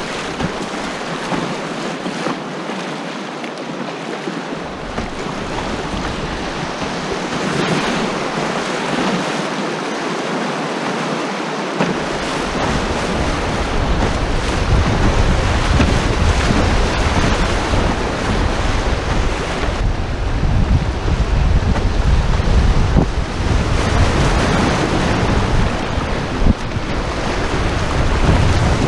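Whitewater rapids rushing and splashing around an open canoe's hull. Wind buffets the microphone with a low rumble from a little before halfway on.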